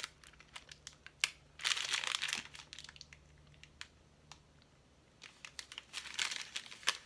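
Snack-bar wrapper crinkling and rustling as it is handled and turned over, in a burst about a second and a half in and again from about five seconds in, with scattered small clicks and a quieter stretch between.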